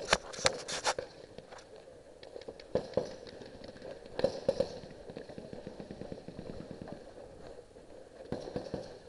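Paintball marker firing a quick string of about six sharp pops in the first second, followed by scattered fainter pops and knocks.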